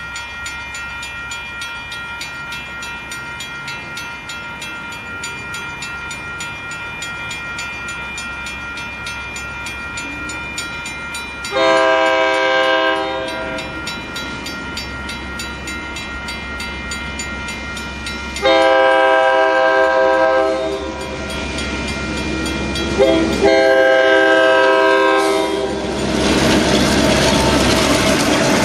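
Grade-crossing bell ringing steadily, then a Union Pacific diesel locomotive's multi-chime horn sounding the grade-crossing signal: two long blasts starting about twelve and eighteen seconds in, then a short toot and a final long blast. Near the end the train passes close by, its wheels running loudly over the rails.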